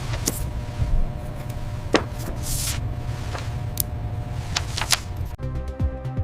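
Industrial factory ambience: a steady low machine hum with faint sustained tones, scattered sharp metallic clicks and a couple of short hissing swishes. The background changes abruptly a little after five seconds in.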